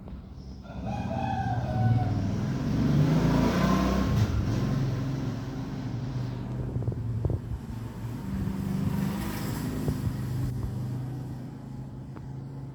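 A rooster crows once about a second in, over the low running of a passing motor vehicle's engine. The engine swells and fades twice.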